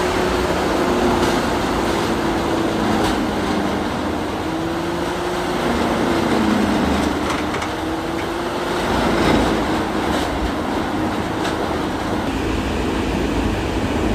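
Heavy diesel excavator engine and hydraulics working under load. The engine note rises and falls in pitch as the machine works, with a few faint knocks.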